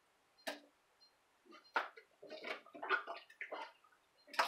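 Water splashing in a stainless steel sink as raw chicken pieces are rubbed and rinsed by hand, in short irregular splashes, the loudest near the end.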